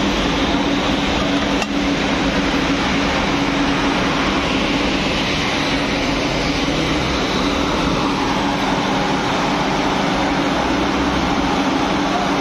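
Steady factory machinery noise: a broad even hiss with a low hum underneath.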